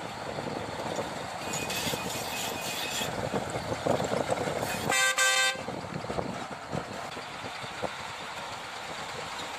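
Heavy vehicle running with a steady rumble, and one short, loud horn blast a little past halfway. Briefly, from about one and a half to three seconds in, a higher hissing noise joins it.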